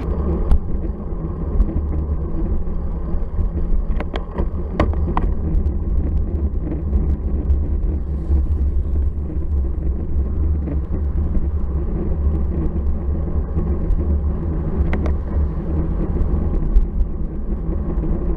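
Steady low rumble of wind and road vibration picked up by a bicycle-mounted camera while riding, with a few sharp ticks about four to five seconds in and again near fifteen seconds.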